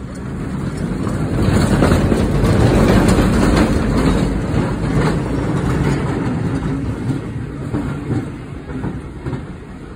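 1888 Baltimore City Passenger Railway streetcar 417 rolling past on its track, its wheels rumbling and clicking over the rails. The rumble is loudest about two to three seconds in and fades as the car moves away.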